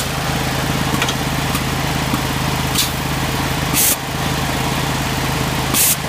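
Air2G2 turf aerator's engine and air compressor running steadily, with two short loud hisses of compressed air about two seconds apart as it blasts air into the turf through its probes.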